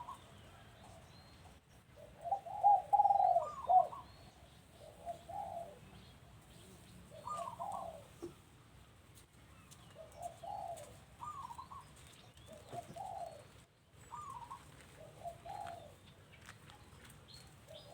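Caged doves cooing: a run of repeated coo phrases, loudest about two to four seconds in, then fainter phrases every second or two, with faint higher chirps in between.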